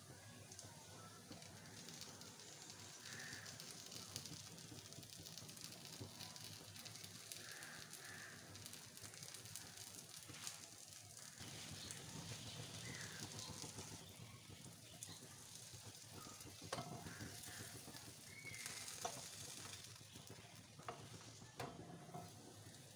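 Stuffed bread patties frying on a hot grill pan: a soft, steady sizzle throughout, with a few light knocks in the second half as a spatula and a gloved hand move them.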